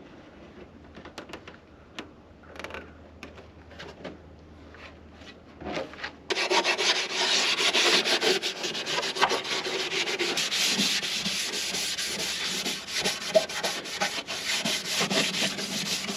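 Rough sanding or scuffing on the car's bare metal: a few quieter scrapes and taps, then from about six seconds in loud, continuous abrasive rubbing.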